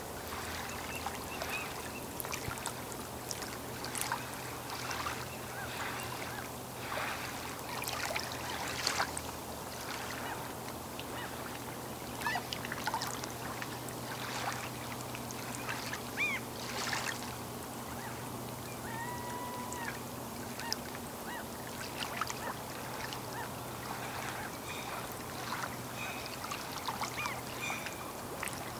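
Small waves lapping and splashing irregularly at a lakeshore, with waterfowl calling now and then and a short pitched bird call about twenty seconds in. A faint steady low hum runs underneath.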